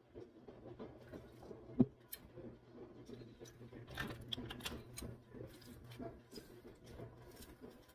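Small, irregular clicking and crackling of cooked shrimp shells being peeled by hand, thicker about halfway through. One sharp knock about two seconds in, a drinking glass set down on the table.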